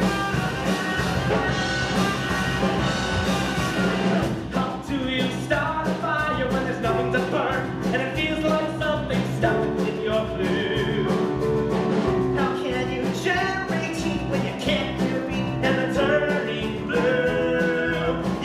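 Live rock-band accompaniment with a steady beat, with singers coming in about four seconds in.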